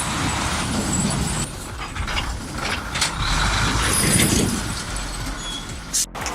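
Loaded log truck's engine running steadily, with a hiss over a low rumble; the sound cuts off abruptly about six seconds in.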